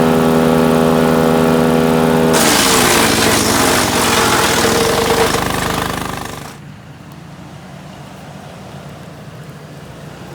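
Split-Fire 4090 wood chipper's engine running steadily. About two seconds in, a limb is fed in and the chipper chews it with a loud crunching noise while the engine's pitch sags under the load. A little after six seconds the chipping stops and only a much quieter steady hum carries on.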